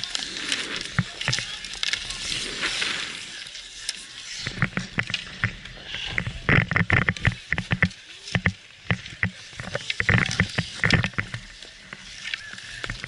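Ice skates scraping across outdoor rink ice, with many sharp clicks and knocks from hockey sticks and gear, denser in the second half, and faint voices.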